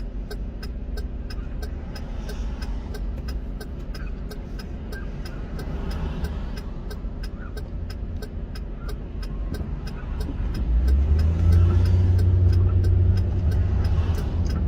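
A car running, with a steady low rumble that gets louder about ten seconds in, as if accelerating. A faint, even ticking about three times a second runs through it.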